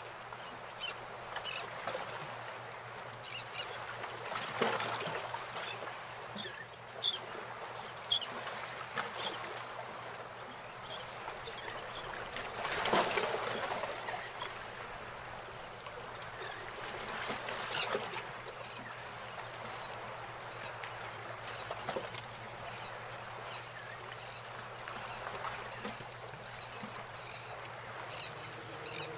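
Birds calling, with a quick run of sharp high chirps about two-thirds of the way through, over a low steady background hum.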